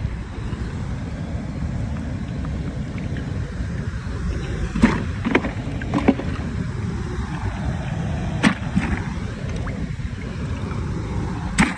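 Steady low rushing noise with a handful of short, sharp clicks and knocks scattered through it, the clearest about five, six and eight and a half seconds in.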